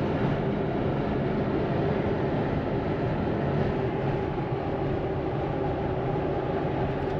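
Steady road and tyre noise with wind rush from a Tesla Model X driving, heard inside the cabin. It is an all-electric car, so there is no engine sound, only the even rumble of the tyres and air.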